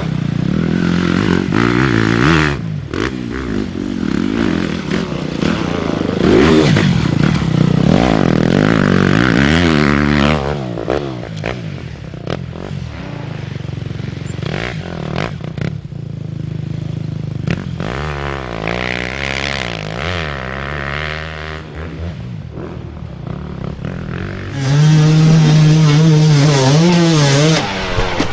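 Enduro dirt bike engines revving hard and dropping back as riders struggle up steep, loose climbs, changing abruptly from clip to clip; the loudest, most sustained revving comes near the end.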